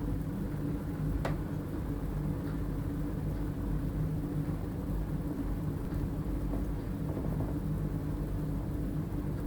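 Baxi Main 5 14F gas boiler running with a steady low hum, and a single sharp tick about a second in. This is the boiler whose gas valve knocks.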